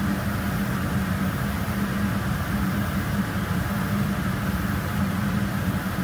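Spray booth exhaust fan running, a steady hum with an even rush of moving air.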